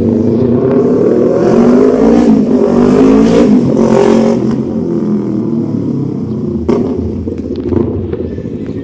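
Yamaha MT-03 motorcycle with an SC Project full exhaust accelerating, rising in pitch and growing louder, loudest about three to four seconds in, then fading away.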